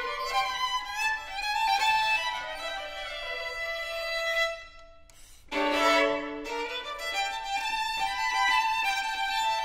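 Two violins playing a duet of contemporary concert music, with held bowed notes. The playing breaks off for about a second near the middle, then comes back in with a sharp, loud attack.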